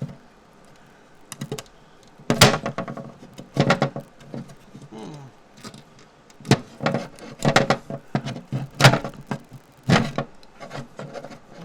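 Prying and scraping at an old glued-in light fixture to work it loose: irregular clusters of sharp knocks, clicks and scrapes, with short pauses between them.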